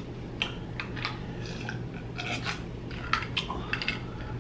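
Close-miked drinking from a glass of iced drink: small sips and swallows with a scatter of short wet mouth clicks at uneven spacing, over a faint steady low hum.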